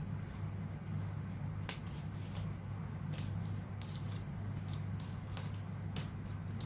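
Scattered clicks and rustles of a cardboard coffee-machine box being handled, over a steady low hum.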